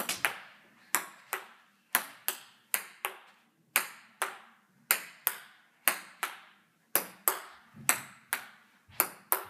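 Table tennis rally: the ping-pong ball clicking off paddles and the table back and forth, about three sharp hits a second without a break.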